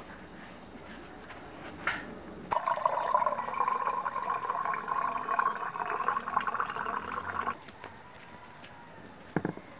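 Water poured in a steady stream into a hollow coconut-shell pitcher, filling it; the pour starts about two and a half seconds in and cuts off abruptly about five seconds later.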